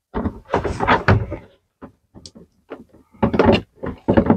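Plastic shower-head holder knocking, clicking and scraping as it is fitted by hand onto its wall-mounted bracket, in two short bursts about two seconds apart.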